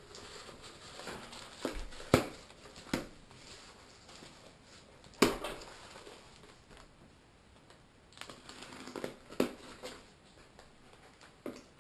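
Packaging being handled and opened: plastic wrapping and bags crinkling, with a few sharp knocks or clicks, the loudest about two and five seconds in.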